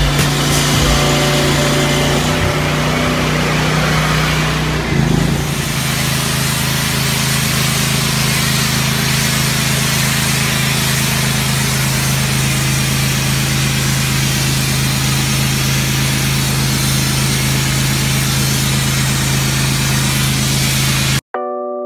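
Pressure washer's gasoline engine running steadily under the hiss of the high-pressure spray. The engine note shifts slightly lower about five seconds in, and the sound cuts off abruptly near the end.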